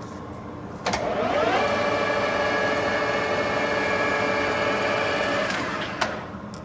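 Clausing Colchester engine lathe's spindle and headstock gearing starting with a click about a second in, rising in pitch to speed over half a second, then running at a steady speed with a gear whine. It winds down and stops with a click about six seconds in.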